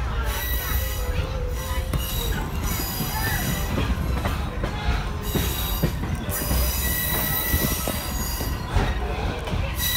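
Excursion-train passenger coach rolling along the track, heard from inside the car: a steady low rumble with scattered clicks, and a high-pitched steel wheel squeal on the rails that comes and goes, strongest over the second half.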